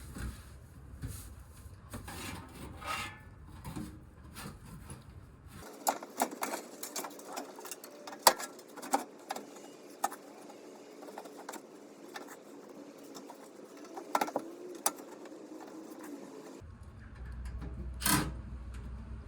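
Sharp metal clanks, knocks and clatter of a blower assembly and sheet-metal panels being handled and fitted into a heat pump cabinet, thickest in the middle stretch. A low background rumble drops out about six seconds in and returns near the end.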